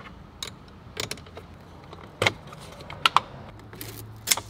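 Hand tools and small metal parts clicking and tapping while wiring at a van's battery terminal is worked on: about seven short, sharp clicks at irregular intervals, a few in quick pairs.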